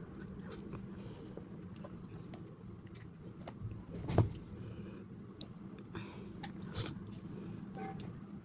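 Close-up eating sounds: biting and chewing boba ice cream with its chewy tapioca pearls, small wet clicks throughout. A single sharp knock about four seconds in is the loudest sound.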